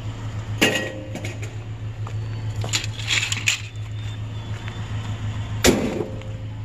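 Steady low hum of an idling vehicle engine, broken by two sharp metallic knocks, one about half a second in and one near the end, with some clatter in between.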